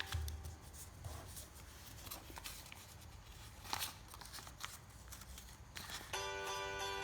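A sheet of paper being handled and folded by hand: soft rustling with a few sharp creasing scrapes. Background music comes back in about six seconds in.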